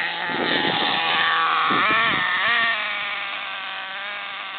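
Small glow-fuel (nitro) RC car engine running at speed with a high, buzzing whine; the pitch dips and climbs again about two seconds in, then holds steady as the sound slowly fades with the car driving away.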